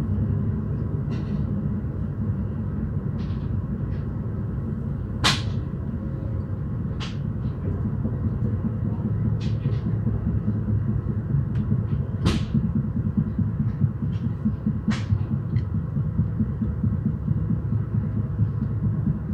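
Passenger train rolling along, heard from on board: a steady low rumble and hum, with sharp clicks every few seconds, the loudest about five and twelve seconds in.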